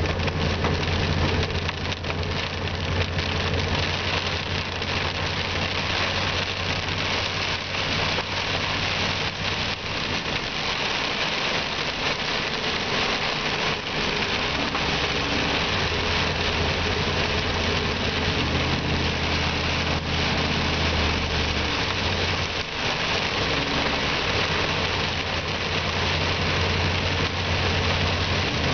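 Heavy rain beating on a car's windshield and body while driving, with the engine's steady low hum underneath. The engine hum fades for a few seconds near the middle of the stretch, then returns.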